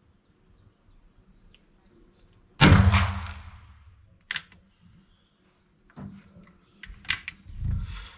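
A muzzle-loading black-powder rifle fires a single shot about two and a half seconds in, the report ringing on for over a second in the enclosed range. A few sharp knocks and a dull thump follow as the rifle is handled.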